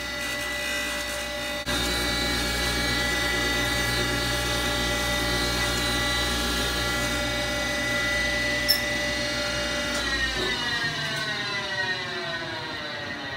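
Flywheel grinder with a vitrified FGW37 grinding wheel grinding a hardened clutch floater plate: a steady, many-toned whine that grows louder about two seconds in. About ten seconds in the machine is shut off and its whine falls in pitch as it spins down.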